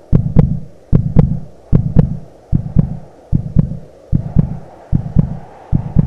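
Heartbeat sound effect: paired lub-dub thumps repeating steadily, about 75 beats a minute, over a faint hum.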